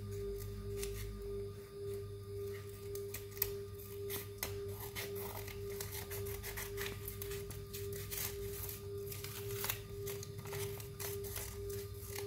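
Scissors snipping through paper, a long irregular run of short sharp cuts, over a steady pulsing tone and a low hum.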